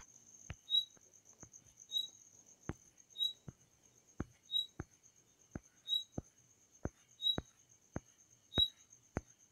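Computer mouse scroll wheel clicking in short, uneven runs, about one to two sharp clicks a second, as the page is scrolled. Behind it a faint high steady whine and a short high chirp repeating about every second and a half.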